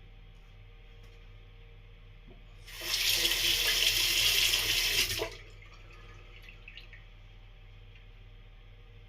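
Water running from a tap into a sink for about two and a half seconds near the middle, then shut off.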